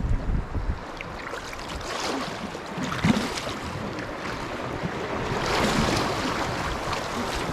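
Running water of a small spring stream, a steady splashing rush, with a brief knock about three seconds in.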